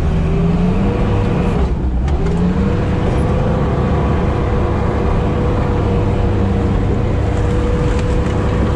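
Sherp amphibious ATV's diesel engine running under load, heard from inside the cab; its pitch dips and climbs back about two seconds in, then holds steady as the machine pushes through floating ice and slush.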